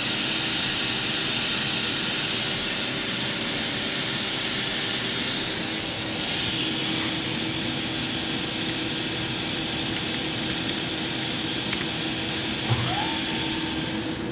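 Spindle of a Doosan DNM 500 II vertical machining center running steadily at 2,500 RPM, a constant whine over an airy hiss, with a single click near the end.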